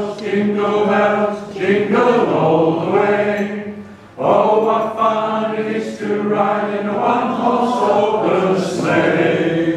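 A small group of men singing a carol together, unaccompanied, with a short break about four seconds in before they carry on.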